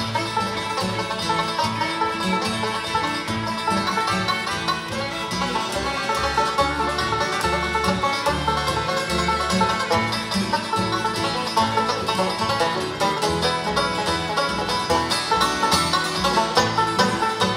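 Live bluegrass band playing an instrumental break between sung verses: banjo, fiddle, acoustic guitar and upright bass, with the bass keeping a steady low pulse under the picked and bowed melody.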